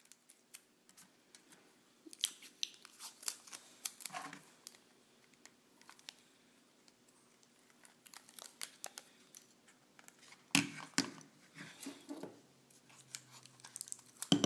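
Adhesive tape crackling as it is pulled off the roll, torn and pressed around a plastic airsoft pistol's body, in scattered bursts, with light handling of the plastic gun.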